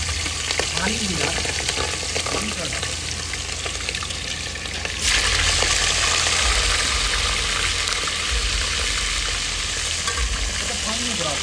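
Fish pieces frying in hot oil, a steady sizzle full of small crackles. About halfway through the sizzle suddenly becomes louder and brighter.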